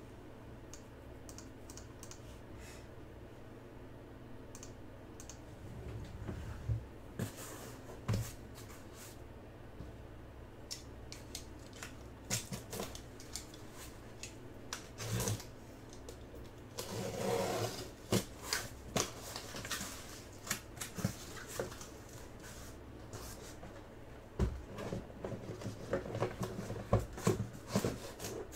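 Sealed cardboard shipping case being opened: a box cutter slitting the packing tape, then the cardboard flaps scraped, rustled and folded back, in scattered clicks and scrapes with a longer tearing scrape a little past halfway. The first several seconds hold only a low steady hum.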